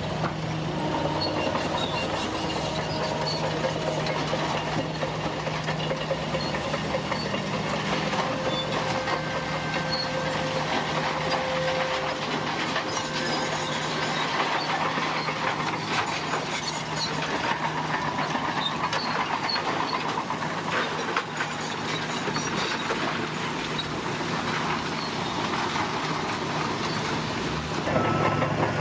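Crawler bulldozer's diesel engine running under load, with steady clanking and clattering of its steel tracks and rock scraping. A reversing alarm starts beeping near the end.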